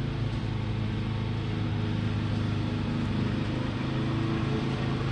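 Lawn mower engine running steadily, a continuous drone.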